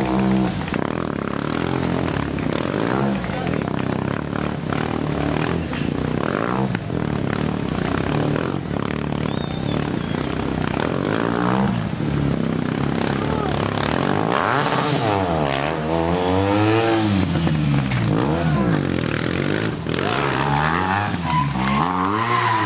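Stunt motorcycle's engine revving up and down again and again, its pitch rising and falling in quick sweeps, with the widest swings a little past the middle.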